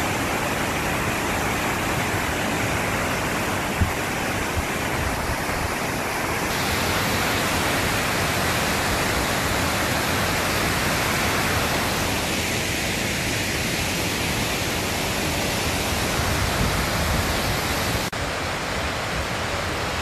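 Tortum Waterfall pouring down a rock face into its pool: a steady, loud rush of falling water. A brief knock is heard about four seconds in.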